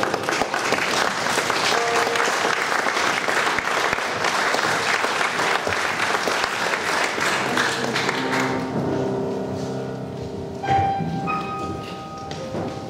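Audience applauding over a grand piano playing held notes. The applause dies away after about eight seconds, leaving the piano on its own.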